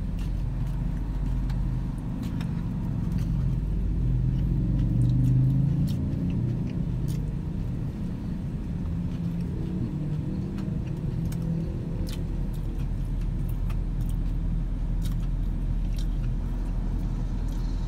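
A car engine idles with a steady low hum, heard from inside the cabin. Scattered faint clicks of eating and of a paper burger box being handled sound over it.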